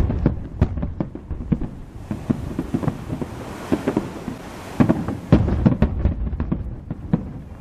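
Fireworks display going off: a rapid run of sharp bangs and crackles, with heavy volleys at the start and again about five seconds in.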